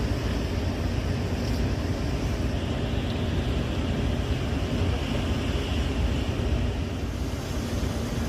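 Steady low rumble of a ship's engine running, with wind and sea noise over it.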